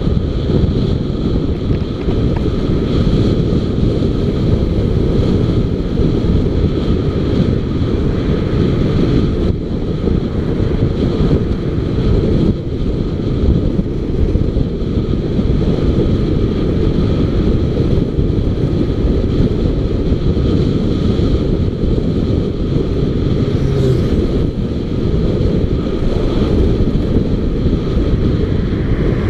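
Heavy wind rumble on the microphone of a moving motorcycle, with the bike's engine and road noise running steadily underneath.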